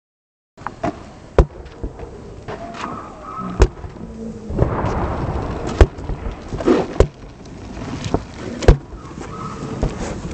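Skateboard on a concrete court: wheels rolling with a rough hiss, broken by about six sharp wooden clacks and landings of the board, one every one to two seconds.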